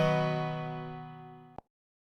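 A phone ringtone's last strummed guitar chord ringing out and fading steadily, ended by a small click about one and a half seconds in, then silence.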